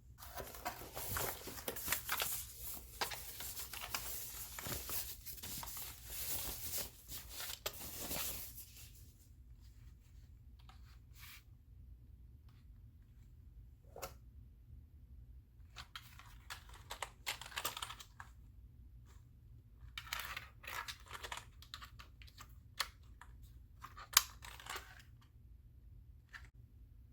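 Packaging being torn open and handled: several seconds of continuous tearing and crinkling, then scattered short rustles and clicks.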